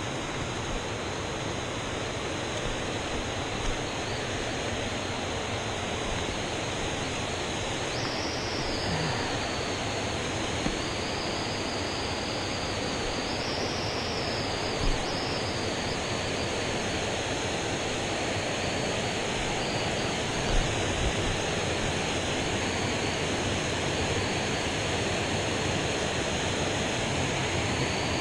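Steady rush of water pouring over a dam, with a few faint knocks.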